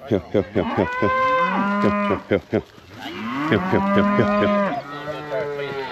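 Brangus cattle mooing at close range: a few quick rising calls, then two long moos of a second or two each.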